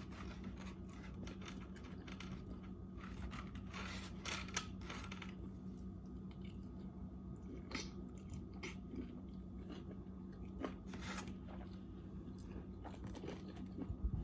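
Close-up chewing and biting while eating, with scattered small crunches and mouth clicks over a steady low hum.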